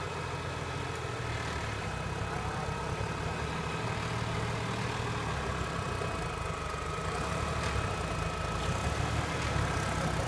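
Engine of a lifted off-road 4x4 running steadily at low revs as it crawls slowly over a rutted forest trail, getting a little louder in the second half.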